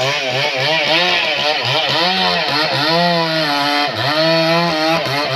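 A man imitating a revving chainsaw with his voice: a buzzing drone that keeps rising and falling in pitch, broken by short pauses for breath.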